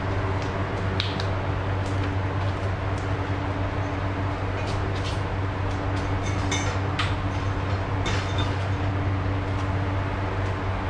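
Steady machine hum from an electric motor running, with scattered light clicks and clinks.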